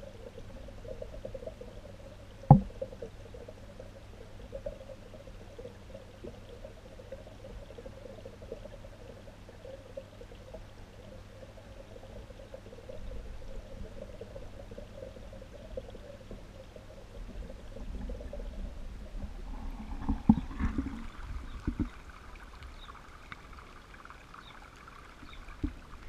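Steady, muffled running-water noise heard through a camera submerged in a goldfish pond, with a low steady hum underneath. There is one sharp knock about two and a half seconds in, and a few more knocks near the end.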